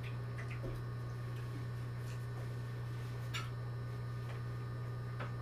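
A steady low hum with a few light clinks and taps of cutlery and dishes, scattered a second or so apart.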